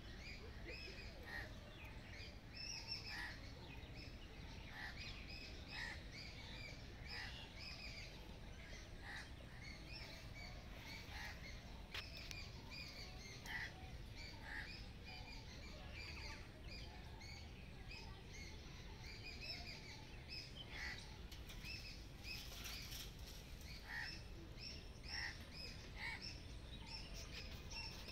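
Birds chirping, many short high calls a few times a second, over a low steady rumble.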